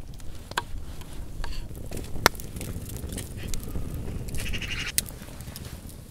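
Knife chopping on a wooden cutting board, a few sharp taps, with a livestock bleat about four seconds in over a low outdoor rumble.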